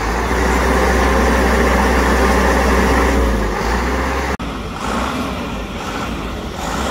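Crane truck's diesel engine running steadily, a loud low rumble; it cuts off abruptly about four seconds in, leaving a quieter engine-and-harbour background.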